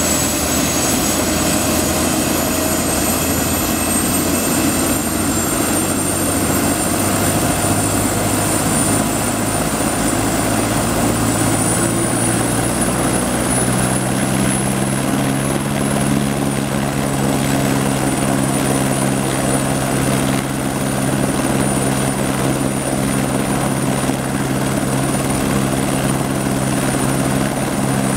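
Airbus H125 (AS350 B3e Esquilo) helicopter running on the ground with its main rotor turning. The whine of its Arriel 2D turboshaft climbs slowly in pitch over the first fifteen seconds or so and then holds steady as the engine spools up. From about halfway through, a steady low rotor drone settles in beneath it.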